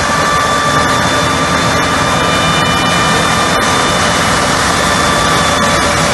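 Excavator-mounted TinBin TC2 vacuum suction unit running: a loud, steady rush of air with a high whine over a low engine rumble, and a few faint clicks.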